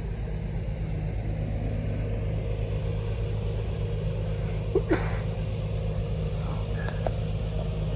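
An engine running steadily at idle, a low even hum, with a short click about five seconds in.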